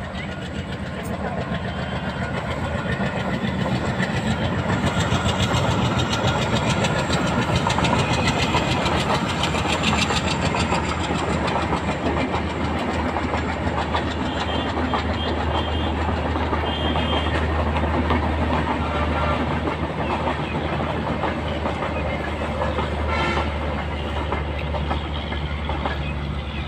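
Passenger train running past on the line, a steady rumble with fast clickety-clack of wheels on rail joints. It grows louder over the first few seconds, then holds, with a low hum underneath that strengthens later on.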